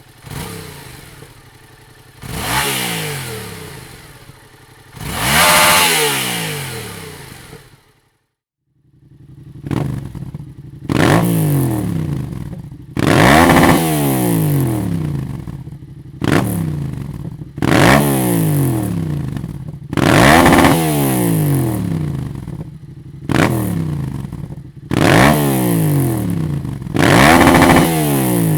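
Yamaha MT-07's parallel-twin engine revved repeatedly through a Dominator aftermarket exhaust, each rev rising sharply and dropping back toward idle. Two revs come first, then a short break about eight seconds in, then a string of quick revs every two to three seconds.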